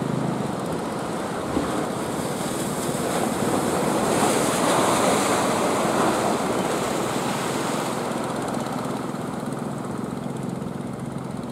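Surf washing in, swelling to a peak about halfway through, over the steady low hum of a fishing boat's engine that is plainest at the start and again near the end.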